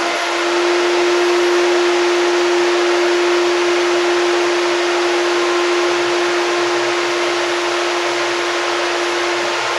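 Electric motor-driven machine running steadily: one constant hum-whine over a strong even hiss, with no change in speed.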